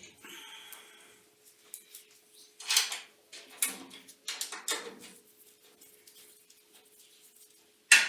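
Workshop handling noises while a shim washer is fitted to a drum sander: a string of knocks, clinks and scrapes, with a short squeak in the first second and a sharp knock near the end, over a faint steady hum.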